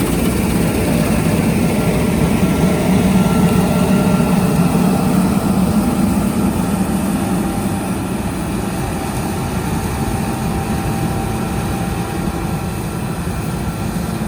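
Heavy farm diesel engine running steadily under load: a constant low rumble with a faint whine above it, from harvest machinery.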